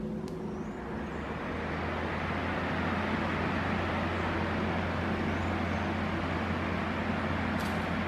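Arno Super Force 30 cm 47 W table fan running: a steady rush of air over a low motor hum, growing a little louder over the first couple of seconds as the fan head is turned.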